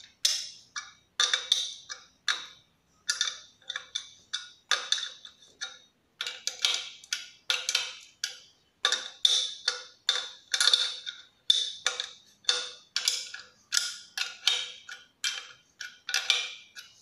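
Ring spanner clicking against a dynabolt nut and steel plate as the nut is tightened in short strokes: a run of sharp metallic clicks, about two a second and unevenly spaced.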